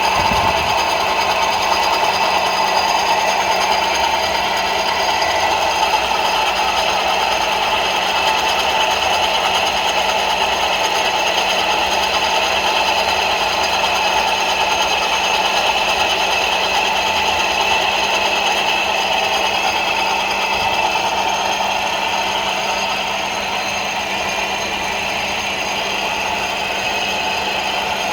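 Ford Focus II 2.0 engine running with a steady metallic rattle and ringing from the air-conditioning compressor clutch, a sign of a worn compressor clutch. The noise eases slightly about 23 seconds in.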